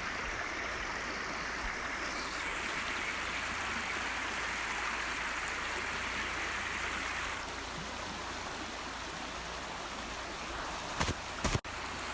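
Creek water running steadily, a little softer after about seven seconds. Two short knocks come near the end.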